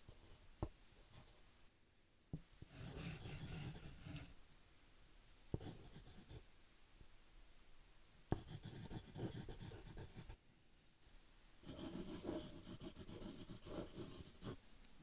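Faint drawing strokes: scratchy rubbing in several bursts, with sharp single taps between them.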